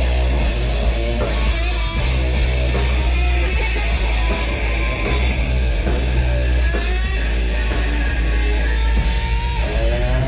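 Live punk rock band playing loud: electric guitars and drums over a heavy, booming low end.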